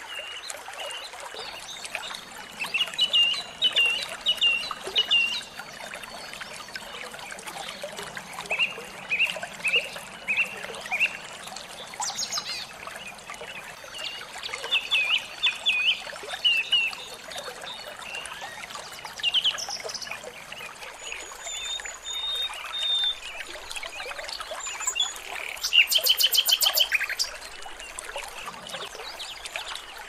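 Small songbirds calling in quick series of short, sharp chirps, with scattered higher single notes; a fast rattling trill near the end is the loudest. Running water trickles steadily underneath.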